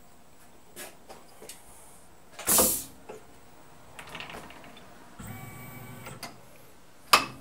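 Tool change on a Tormach PCNC 1100 mill spindle: a short, loud hiss of compressed air about two and a half seconds in as the power drawbar releases the spot-drill tool holder. Small clicks and knocks of the holder being handled follow, with a sharp click near the end as the next holder goes in.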